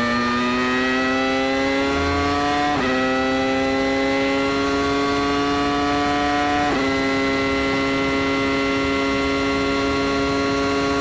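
An engine accelerating hard, its steady note climbing slowly in pitch and dropping sharply twice, about three and seven seconds in, as it shifts up a gear each time.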